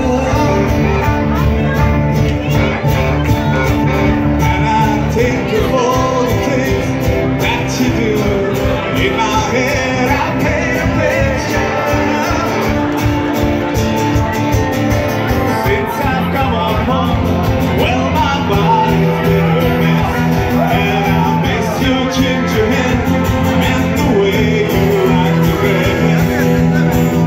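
Live song: a man singing into a microphone over an amplified acoustic guitar, with band accompaniment, playing continuously.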